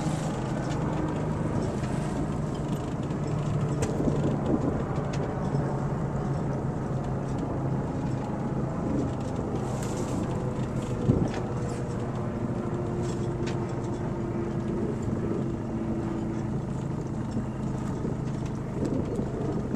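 A sailboat's auxiliary engine running at a steady speed, with wind and water noise over it, as the boat motors slowly out of the mooring field. There is one short knock about eleven seconds in.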